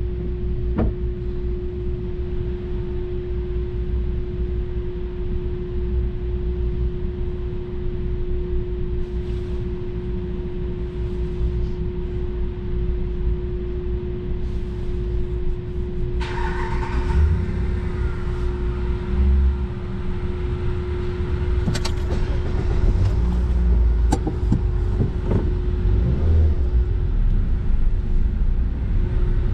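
Low steady rumble on a ferry's car deck, heard from inside a waiting car, with a steady hum over it. About halfway through a louder hiss comes in, and a few knocks follow as the cars start to roll off.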